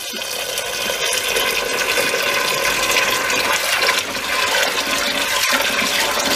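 Cold tap water pouring in a steady stream into a stainless steel pot of dried white beans in a sink, splashing as the pot fills. It grows louder over the first few seconds.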